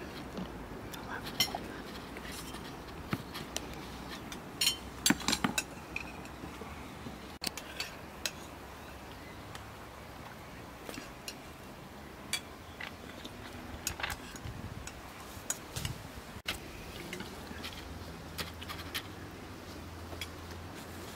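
Scattered clinks and scrapes of utensils against dishes, separate sharp clicks with a cluster of louder ones about five seconds in.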